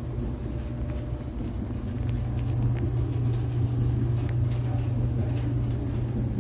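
Front-loading clothes dryer running: a steady low hum and rumble that grows slightly louder about two seconds in.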